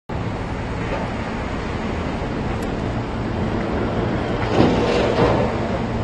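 Strong typhoon wind blowing in a city street, a steady low rumbling rush with a louder gust about four and a half seconds in.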